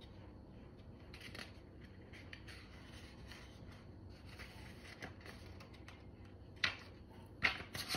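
Quiet rustling of a picture book's paper pages as a fold-out flap is lifted and a page turned, with two short sharp crackles of paper near the end.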